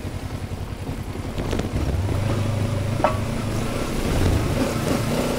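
Kawasaki Versys-X 300's parallel-twin engine chugging at low revs, picking up a little and running steadier about two seconds in. A brief sharp sound near three seconds.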